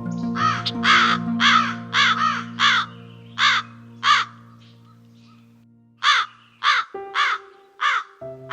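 A bird calling over and over, about two calls a second, falling silent for a couple of seconds midway and then starting again, over background music.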